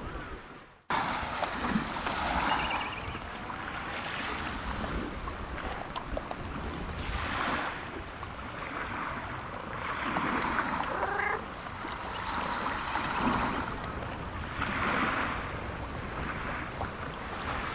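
Wind buffeting the microphone in gusts, with a domestic cat giving a short meow once or twice. The sound cuts out briefly less than a second in.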